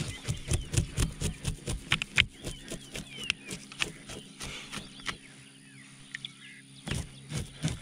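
Knife blade scraping scales off a fish, in quick rasping strokes several times a second, pausing about five seconds in and resuming near the end. Faint bird chirps.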